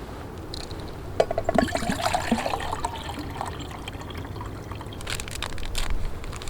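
Water poured into a canteen cup, with a short trickling, gurgling pour in the first half. A few light clicks and handling knocks follow near the end, over a low wind rumble.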